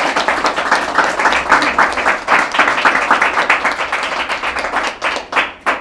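Audience applauding: a dense patter of many hands clapping that thins out near the end to a few last claps.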